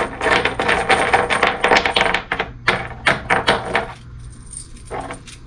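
Loose metal bolts clinking and clattering together as they are handled and sorted. There is a quick run of many small clicks for about four seconds, then a couple more near the end.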